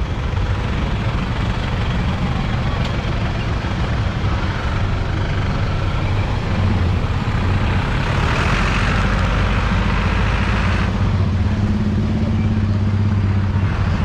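Honda motorcycle engine running at low speed with a truck's engine running close alongside: a steady low hum that grows louder and hissier for a few seconds past the middle.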